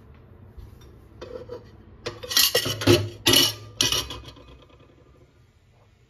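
Dishes and cutlery clattering and scraping, three or four loud, sharp bursts about two seconds in that die away a couple of seconds later.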